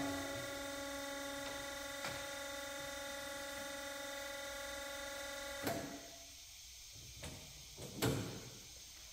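Bomar STG 260 GA automatic bandsaw for metal humming steadily as it runs on after cutting, then switched off with a clunk about six seconds in. A second, louder clunk comes about two seconds later as a button on its control panel is pressed.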